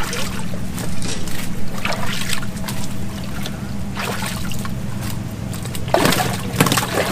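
Water splashing and sloshing in a tub as live bass are lifted out of it by hand, in several short bursts, over a steady low hum.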